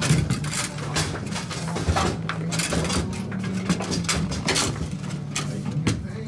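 Table-football rally: the ball knocking sharply off the players and table walls, and the metal rods clacking in their bearings, in irregular hard knocks over a low steady hum.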